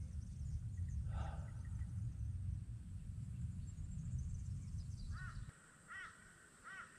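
Uneven low rumble of wind buffeting the microphone, which stops about five and a half seconds in. A bird calls once about a second in, then three more short calls follow near the end, about a second apart.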